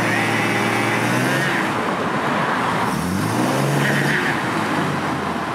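Car engine running under way over road noise; its pitch holds, drops, then climbs again about three seconds in as the car accelerates.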